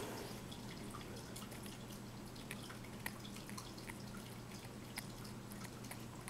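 Faint, irregular small clicks and ticks of a hooked metal dental scaler scraping plaque from a cat's teeth, over a low steady hum.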